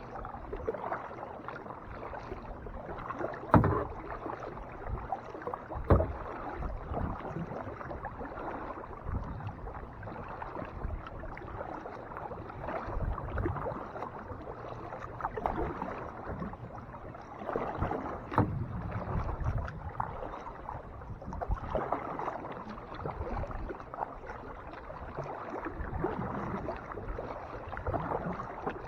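Kayak paddle strokes splashing and dripping in the lake water, uneven and continuous, with a few sharper knocks of the paddle or hull.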